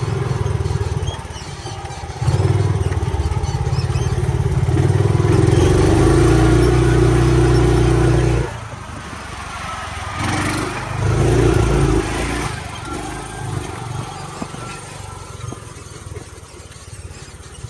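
Small vehicle engine running and being revved. It holds a higher, louder run for several seconds, drops off sharply about eight seconds in, revs briefly again a couple of seconds later, then runs quieter.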